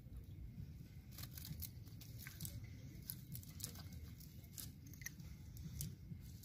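Faint scattered rustles and clicks of small fish flapping in a cast net on wet grass and mud, over a low rumble.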